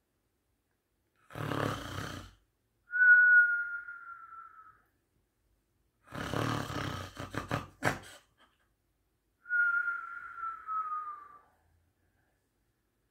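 Comic cartoon-style snoring: a rasping snore in, then a long whistled breath out that slides slightly down in pitch, twice over.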